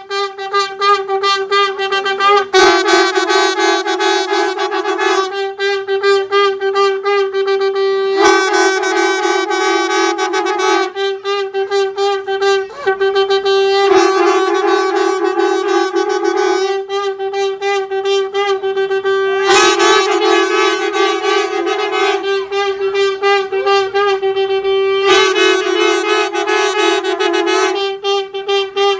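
Valampuri (right-spiralled) conch shells blown on one held note with many overtones. The sound switches about every three seconds between long, smooth blasts and stretches broken into rapid pulses.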